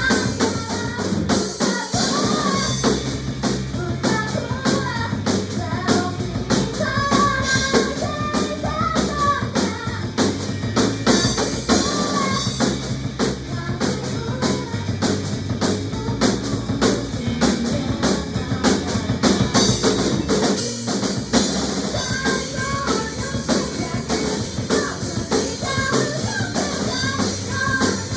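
Band music with a drum kit keeping a steady beat over bass and a melody line, with a brief drop in the bass about twenty seconds in.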